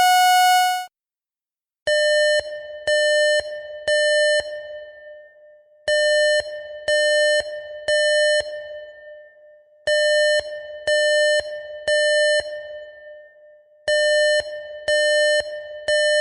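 A steady siren tone cuts off under a second in; then an electronic alarm sounds in groups of three half-second beeps, repeating four times, each group echoing briefly before the next. The three-beep rhythm repeating every four seconds is the temporal-three evacuation pattern used by fire alarms.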